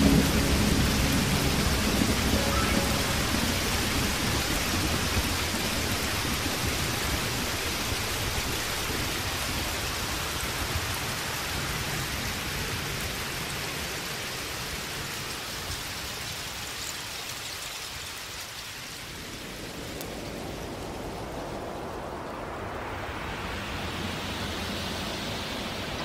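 Steady rain falling, a continuous hiss that slowly fades, turning duller in the last few seconds.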